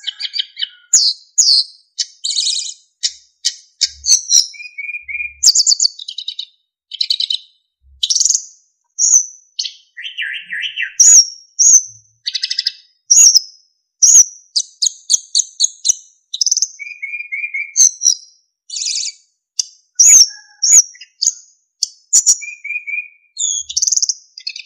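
Sikatan emas (a yellow, black and white flycatcher) singing a fast, varied song of short clear whistles and chirping trills, note after note with brief gaps, mostly high-pitched.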